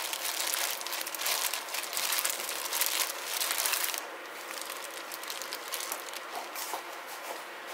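A plastic-gloved hand tossing napa cabbage with seasoning for fresh geotjeori kimchi: wet squishing and glove crinkling. About four seconds in the mixing stops and only a quieter hiss remains.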